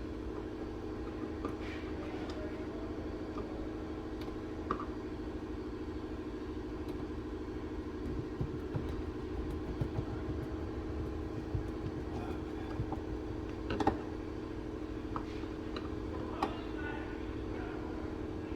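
Steady engine-like hum with a low rumble, over scattered small clicks and knocks of parts being handled, and one sharper click about 14 seconds in.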